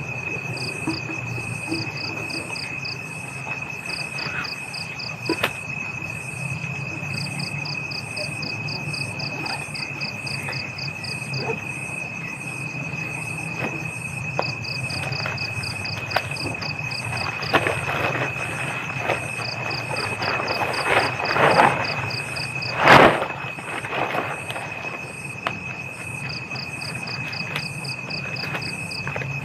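Night forest insects: a steady high-pitched drone, with rapid pulsed trills of crickets coming and going above it, over a low steady rumble. Scattered knocks and rustles run through it, the loudest a single sharp knock about 23 seconds in.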